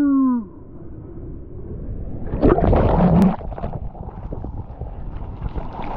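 Ocean water rushing and splashing around a surfer's point-of-view camera, with wind on the microphone. A louder surge of splashing comes about two and a half seconds in and lasts about a second.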